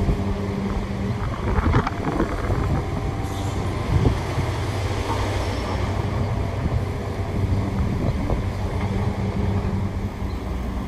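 Diesel engines of demolition excavators running steadily, with a few sharp knocks about two and four seconds in.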